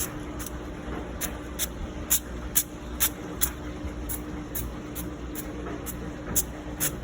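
Butter spray bottle pumped over and over onto bread, giving short hissing spritzes about two a second, over a steady low hum.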